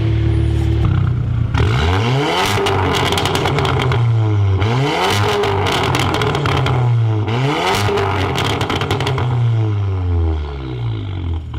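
VW Golf R's turbocharged four-cylinder engine and exhaust blipped three times from idle, each rev rising and falling, with a wet, farting crackle from the exhaust on each. It settles back toward idle near the end.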